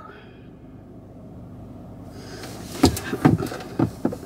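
Inside a car, a faint steady hum, then four short knocks and clicks about three seconds in, from things being handled in the cabin.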